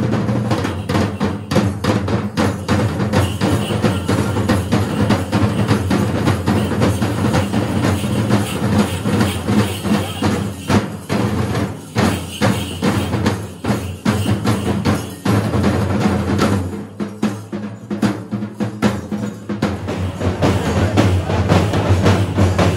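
Fast, dense festival drumming with sharp, closely packed strokes over a steady low hum. The drumming thins out briefly about two-thirds of the way through, then returns at full strength.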